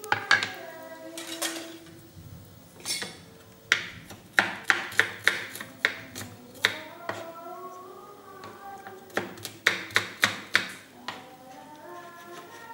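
Kitchen knife slicing shallots and garlic on a wooden cutting board: two runs of quick knocks, about three a second, one in the middle and one near the end. Light background music plays underneath.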